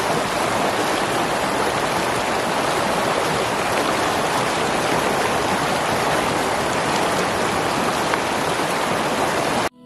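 A river flowing: a steady, even rush of running water, which cuts off suddenly near the end.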